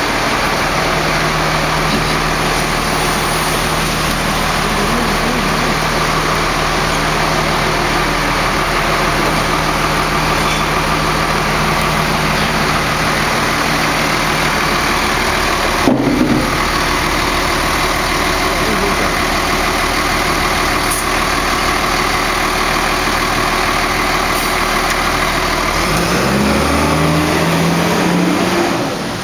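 Rear-loader garbage truck's diesel engine running steadily, with one short knock about halfway through. Near the end the engine revs up, rising in pitch, as the truck pulls ahead.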